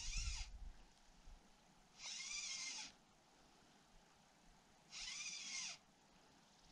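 Fly line being slowly stripped in through the rod guides to retrieve a streamer. There are three faint, hissing pulls of just under a second each, about three seconds apart, each with a slight squeak that rises and falls as the line speeds up and slows down.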